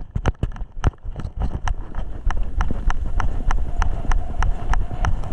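Footsteps at a jog with kit jolting against a body-worn GoPro: sharp, even knocks about three a second over a low rumble of wind and handling noise.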